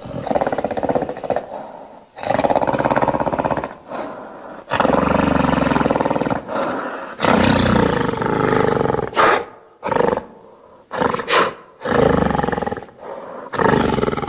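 Creature sound effects: a string of about ten loud roars and growls, each from half a second to two seconds long, with short pauses between them.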